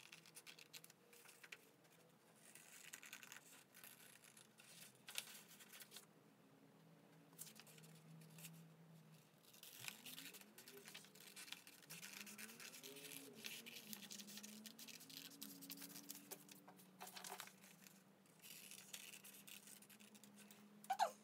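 Faint snipping and rasping of scissors cutting through construction paper, a string of quiet irregular cuts.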